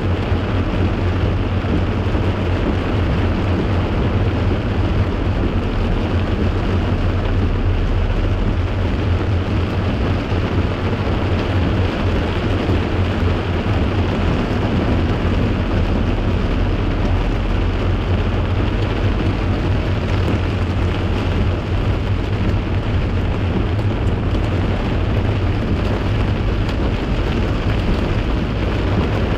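Torrential rain pelting steadily on a car's roof and windscreen, heard inside the cabin over the car's low driving rumble.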